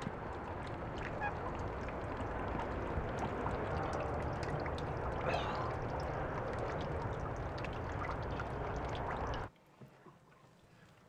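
Steady outdoor background noise with waterfowl calling through it. The sound drops away suddenly near the end to a quiet room.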